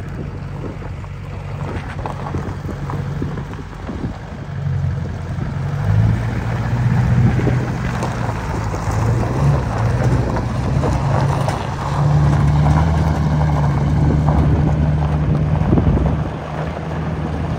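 A 2003 Chevrolet 2500 utility pickup's engine running. It starts steady, gets louder about six seconds in and again about twelve seconds in, and the truck drives off. Wind buffets the microphone.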